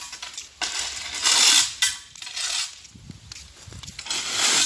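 Loose stones being spread for a fire-pit base, clattering and grinding against each other in repeated bursts about a second long.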